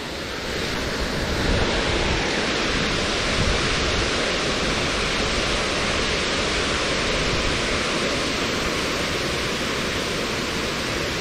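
A steady, even rushing noise with no distinct events, slightly quieter for the first half second and then level throughout.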